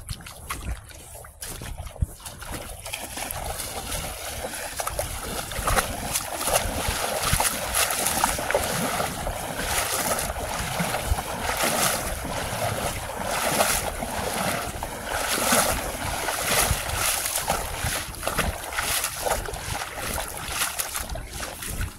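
Irregular splashing and sloshing of feet wading through shallow seawater, with wind buffeting the microphone.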